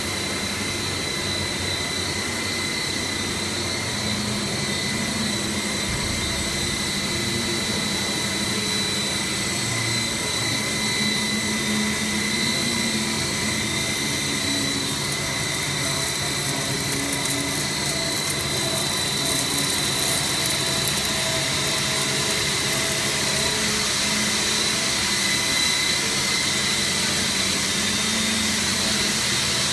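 PE/PP rigid plastic pelletizing line running: the steady noise of its extruder and machinery, an even hiss with a steady high whine over a low hum.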